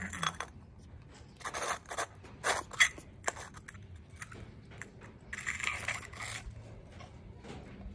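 A small plastic toy scraped, rubbed and knocked against a tiled floor as a baby monkey handles it, in several short bursts with a few sharp clicks.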